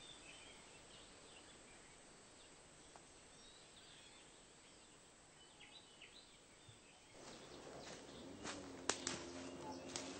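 Faint outdoor ambience with a few soft, high bird chirps. From about seven seconds in, rustling and clicking grow louder and a low steady hum comes in.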